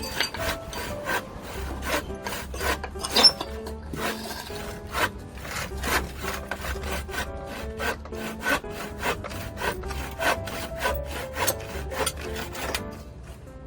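Hand saw cutting through wood in quick, repeated back-and-forth strokes, with background music underneath.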